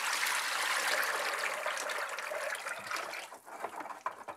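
Thick liquid pottery glaze pouring from a plastic bucket into a plastic tub of glaze, a steady splashing pour. The pour thins out about three seconds in, leaving a few drips.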